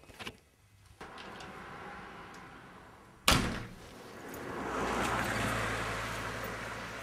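A single sharp bang about three seconds in. Then a car drives past on a wet road, its tyre and engine noise swelling and fading away.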